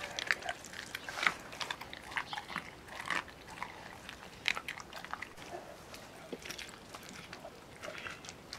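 Weimaraner chewing and biting on a large piece of raw meat, with irregular wet crunches and clicks of its jaws.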